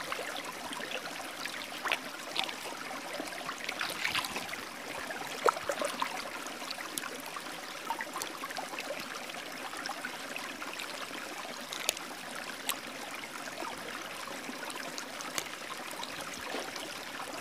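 Shallow stream trickling steadily over stones, with a few short sharp clicks scattered through it.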